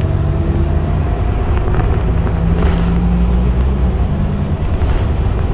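Scania K280UB city bus heard from inside the passenger cabin while driving: a steady low diesel engine hum, its pitch shifting briefly about two and a half seconds in, with a few faint high ticks from the cabin.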